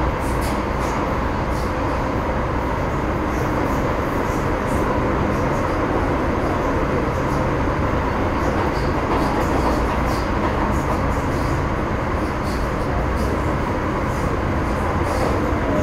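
Metro Cammell M-Train electric multiple unit with GEC GTO chopper traction, running between stations, heard from inside the car. A steady rumble of wheels and running gear, with a faint steady tone and scattered light clicks.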